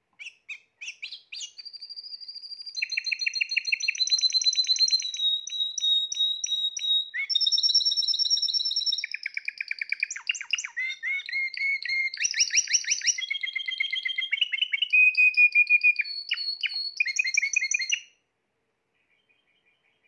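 Spanish Timbrado canary singing one long song: a few separate chirps, then held notes and rapid trills, the phrase changing every second or two. It stops about two seconds before the end.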